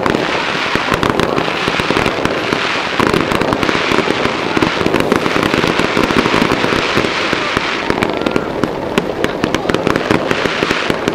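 Fireworks going off low over the water, with a dense, unbroken run of rapid pops and cracks over a continuous crackling hiss.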